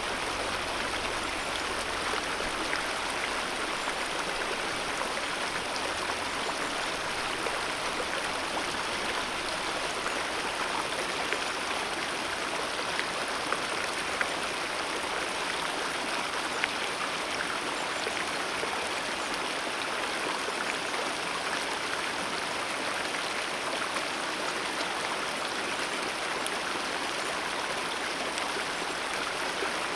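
Alpine mountain river rushing steadily over rocks, an even wash of water with small splashes and gurgles here and there.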